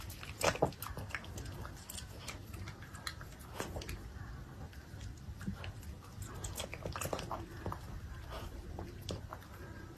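A small dog chewing and biting food taken from chopsticks, making irregular wet clicks and smacks. The loudest cluster comes about half a second in.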